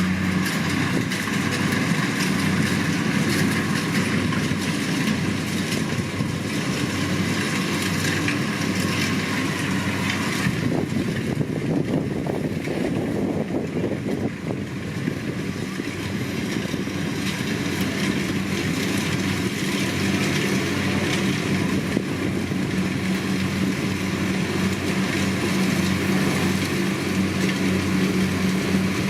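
Kubota DC-70 rice combine harvester's diesel engine running steadily under working load, a constant drone over the clatter of the machinery. The drone's hum fades somewhat in the middle and comes back strongly later on.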